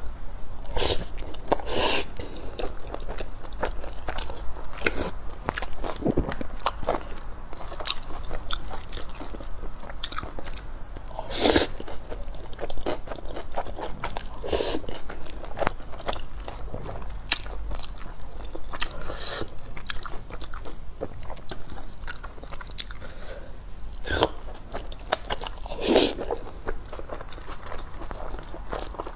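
Close-miked chewing and biting of grilled cold noodle rolls (kao leng mian), with many small wet mouth clicks and a few louder bites spread through.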